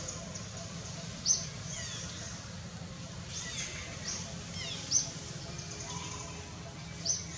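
Birds calling in forest: a short, sharp, high call repeated about every two seconds, with quicker falling chirps between, over a steady low hum.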